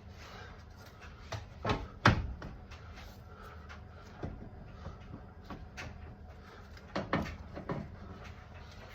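Scattered sharp metal knocks and clunks of a jack being handled and set in place under a car. The loudest comes about two seconds in, and a few more follow around seven seconds.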